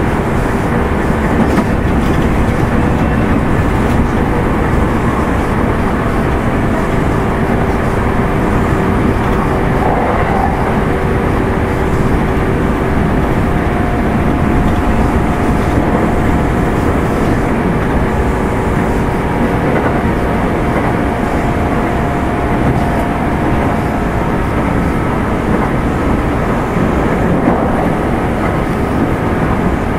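Onboard running sound of a Kintetsu 2610 series electric train, motor car Mo 2627, travelling between stations: a steady loud rumble of wheels on track, with thin humming tones that come and go.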